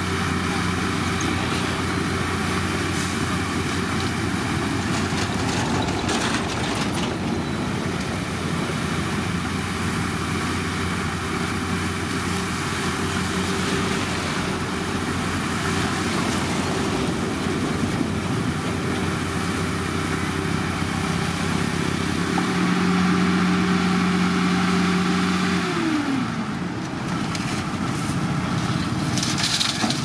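Diesel engine of heavy road-construction machinery running steadily. Near the end it gets louder for a few seconds, then its pitch falls away.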